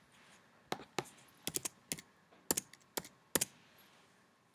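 Computer keyboard keystrokes: about eight separate, unevenly spaced key presses, as numbers are typed into software fields.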